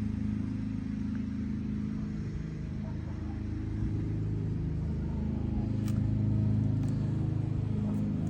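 Steady low machine hum, with a few faint clicks late on.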